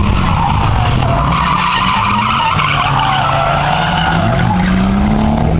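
Drift car sliding sideways: its rear tyres squeal continuously while the engine is held at high revs, its note rising and falling as the throttle is worked.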